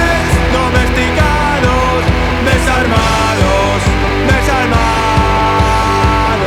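Punk/post-punk band's studio recording: drums keep a steady beat under guitars and bass, with a melodic line that bends in pitch.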